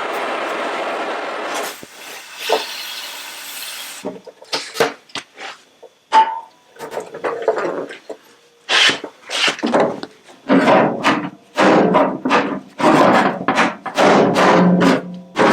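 Butane blowlamp hissing steadily, cutting off about two seconds in, followed by a long run of irregular knocks and thuds as the heated steel panel is worked to shrink out oil canning.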